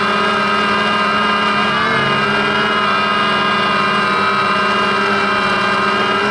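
DJI Phantom quadcopter's motors and propellers whining steadily, heard close up from the camera on the drone itself, with the pitch wavering briefly about two seconds in as the motors change speed.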